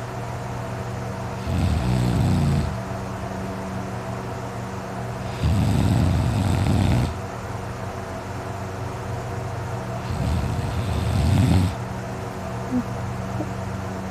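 A man snoring in deep sleep: three loud snores about four seconds apart, each lasting a second or so, over a steady background hum.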